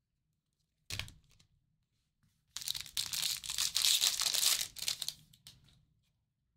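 Trading-card pack wrapping torn open: a short rip about a second in, then about three seconds of tearing and crinkling from two and a half seconds in.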